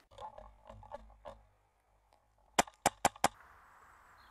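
Four quick shots from an M4 airsoft rifle running a PolarStar Jack HPA (compressed-air) engine, sharp cracks about a quarter second apart. They are preceded by a second or so of soft clicks and rustling from handling the gear.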